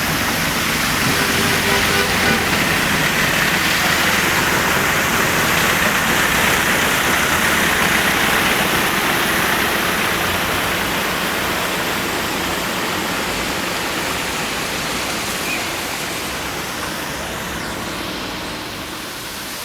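A motor vehicle driving through floodwater on a road, its tyres throwing up a steady rush of water; the rush swells over the first few seconds and slowly fades toward the end.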